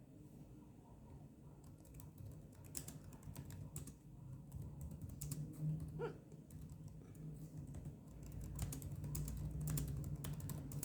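Light, irregular clicks and taps over a low hum, with one soft hiccup from a woman about six seconds in.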